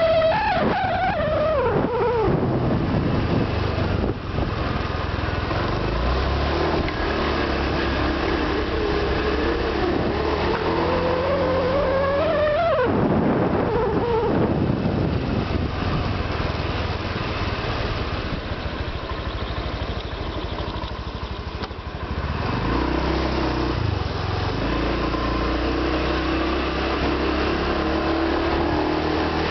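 Honda Vario 125 PGM-FI scooter's single-cylinder engine running under way, fitted with a larger-diameter stainless steel muffler neck. Its pitch drops steeply twice, once right at the start and again about thirteen seconds in, as the scooter slows, and climbs gradually in between as it picks up speed.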